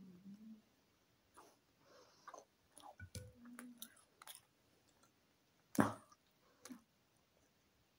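Close-up chewing of a chicken baguette: soft, scattered wet clicks and smacks of the mouth, with one louder sharp sound about six seconds in.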